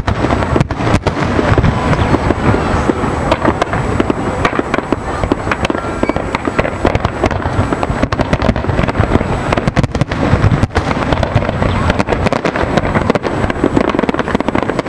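Fireworks display: a dense, continuous barrage of shell bursts and crackling, many bangs following one another with no pause.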